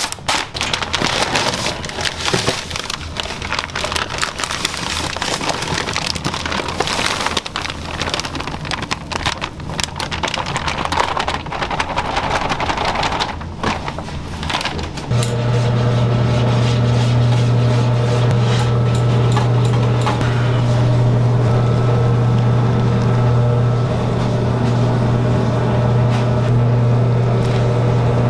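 Kitchen work noise full of crackling and short knocks. About halfway through, a machine motor starts with a loud, steady hum.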